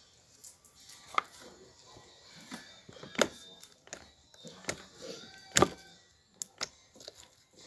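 Homemade slime being squeezed and stretched by hand, giving irregular sharp clicks and pops a few seconds apart.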